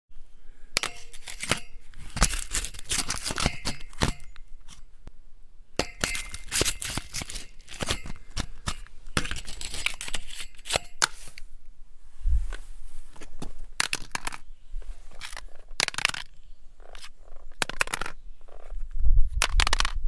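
Metal grating and clattering: a metal object scraped and knocked against metal in dense runs of clinks and scrapes, then sparser single knocks from about twelve seconds in, with louder, heavier knocks near the end.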